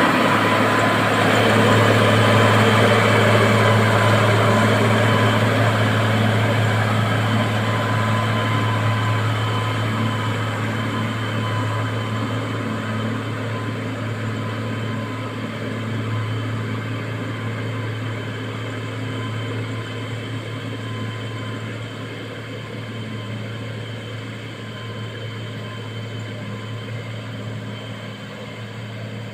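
Motor grader's diesel engine running steadily with a strong low hum, slowly growing quieter.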